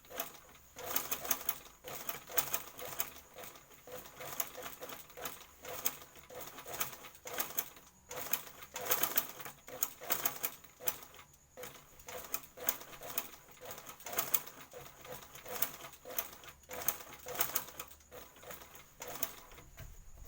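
Sewing machine stitching a skirt hem in short, irregular stop-start runs.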